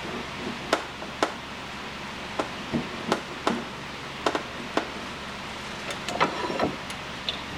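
Irregular sharp metal knocks and clicks, about a dozen, from the pieces of a keyway broaching set being handled and pushed through the handle's bore, over a steady low hum.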